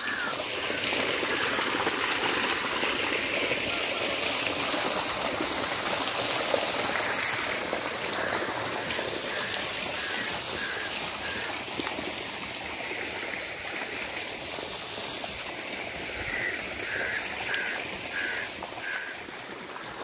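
Irrigation water flowing and trickling steadily over a flooded field. A bird gives a short run of repeated high notes about halfway through and again near the end.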